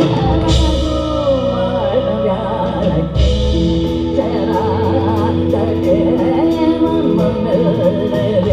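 Live Carnatic progressive rock band playing: a sung melody with bending, ornamented lines over bass guitar, electric guitar and drums. Cymbal crashes come about half a second and three seconds in, and steady hi-hat ticks run through the second half.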